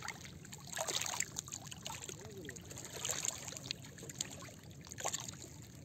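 Faint scattered taps, clicks and light rustling as a freshly caught fish is handled on the hook over stones, with a soft background hiss.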